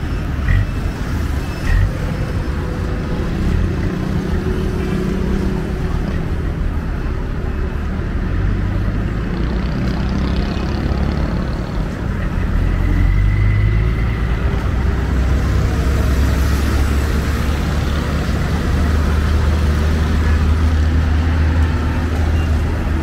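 Busy road traffic: engines of passing vehicles running, with a steady low rumble that grows heavier about halfway through. A couple of short sharp knocks near the start.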